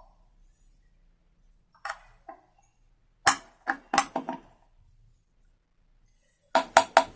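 Light metal-on-metal taps and clinks on a Hero Maestro scooter engine's crankcase: a part with a ring and bush being tapped lightly to seat it. A few scattered taps, then a quick run of about five taps near the end.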